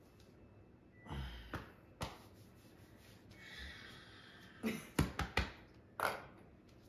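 A person breathing out hard and gasping after downing a shot of liquor, with a quick run of sharp knocks or thuds around five seconds in.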